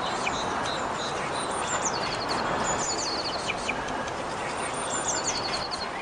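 European goldfinches twittering: several quick phrases of short, high, chittering notes, over a steady background hiss.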